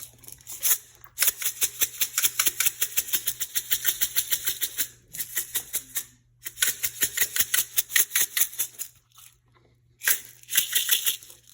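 A spoon stirring thin slime mix of shampoo, body wash and salt in a bowl, clicking rapidly against the bowl in three bouts with short pauses between.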